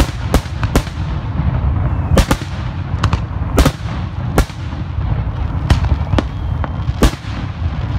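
Aerial fireworks shells bursting at close range: about a dozen sharp bangs at irregular spacing over a continuous low rumble.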